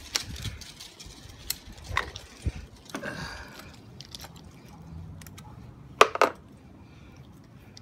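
Scattered light clicks and knocks of hands handling the rubber spark plug boot and wiring on the lower cylinder of a stopped outboard engine, with a sharper double click about six seconds in.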